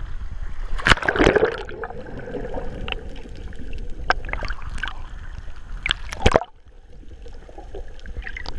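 A man in military boots jumping feet-first into the sea: a splash about a second in, then muffled underwater bubbling and gurgling with scattered sharp clicks, heard through a camera under the surface. The level drops suddenly a little past six seconds.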